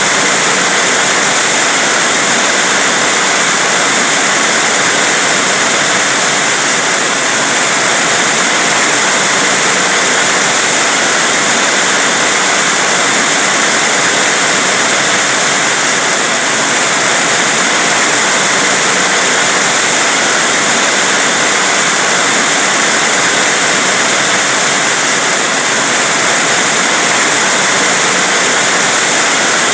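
Heavy rain pouring steadily, a dense, even hiss with no breaks or separate drops standing out.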